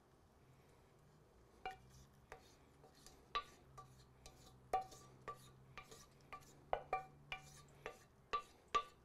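Wooden spoon scraping and knocking against a stainless steel saucepan as thick sauce is scraped out: a string of short, sharp clicks that ring briefly, about two a second, starting a second and a half in.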